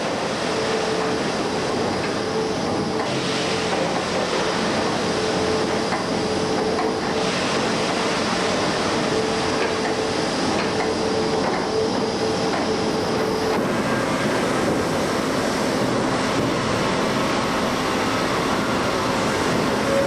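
Sawmill saw-line machinery running: large electric motors, conveyors and cutting heads making steady mechanical noise, with a held hum that stops about thirteen seconds in.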